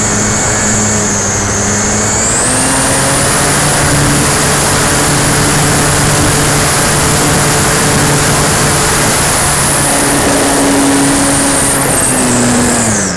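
Durafly Tundra RC plane's electric motor and propeller running at high throttle, heard from an onboard camera, with a high whine over a steady rush of air. The whine steps up in pitch about two seconds in and falls away sharply right at the end as the throttle is cut.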